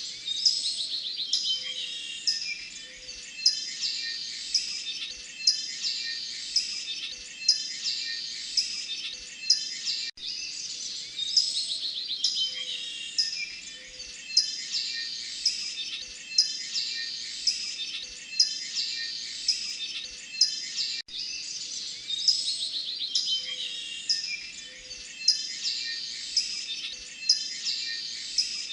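Canary singing: a busy run of high trills and chirps, with a sharp loud note about once a second. The same ten-second stretch of song repeats three times, with a brief dropout at each join.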